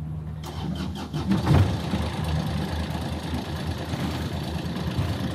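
Universal M25XPB three-cylinder marine diesel being started: the starter cranks briefly and the engine catches within the first couple of seconds, then settles into a steady idle with an even low pulse.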